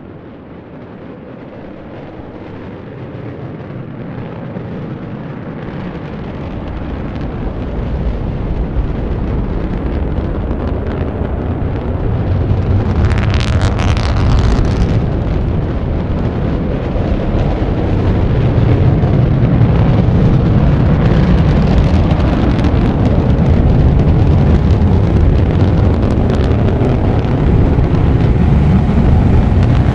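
Rocket engine rumble from the Starhopper test vehicle's Raptor engine, a deep roar that grows steadily louder over the first half and then holds, with a brief brighter hiss about halfway through.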